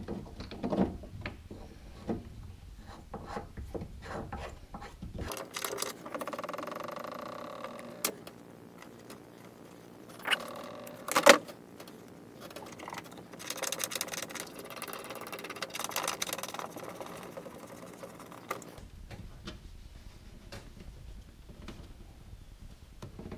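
Hands working a plastic pipe fitting into a rubber coupling: scattered knocks and clicks with stretches of scraping and rubbing, and one sharp click about halfway through.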